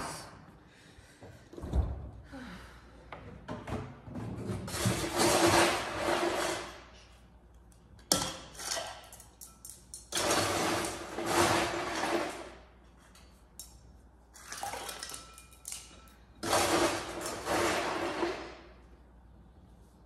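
Refrigerator door dispenser running in three bursts of about two seconds each: a rushing noise over a steady motor hum, with a few light knocks between.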